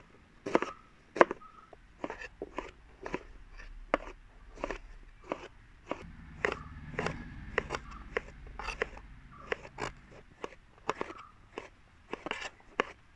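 Kitchen knives chopping green chillies and tomatoes on plastic cutting boards: sharp, uneven knocks of the blades through the vegetables onto the boards, about two a second.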